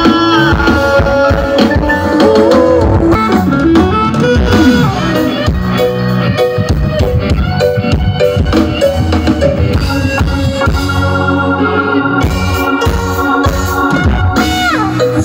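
Live band playing an instrumental passage loudly through the stage PA: drum kit, electric guitars and bass.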